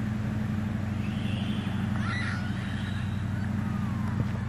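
Steady low hum of an idling engine, with faint distant voices.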